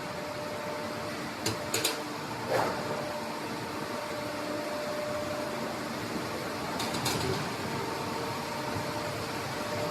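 Steel pipe roll forming machine running: a steady mechanical hum with a faint steady whine, broken by a few short sharp clicks in the first few seconds and once more later on.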